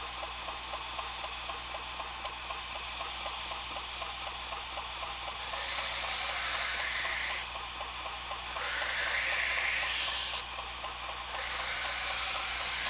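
Belt grinder running with its speed turned down while a steel knife blade is drawn across a Norax 100X abrasive belt to sharpen the edge. Three passes are heard, each a grinding hiss that rises in pitch, starting about five and a half, eight and a half and eleven and a half seconds in.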